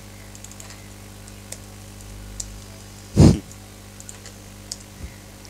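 Scattered computer keyboard and mouse clicks over a steady low electrical hum, with one short, louder low sound about three seconds in.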